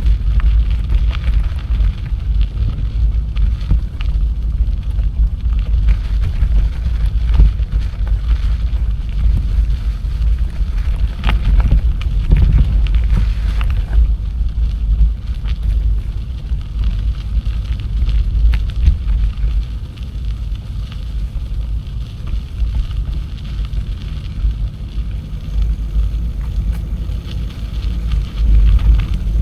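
Wind buffeting the microphone of a camera carried on a moving bicycle: a steady, loud low rumble, with a few faint clicks and rattles from the bike.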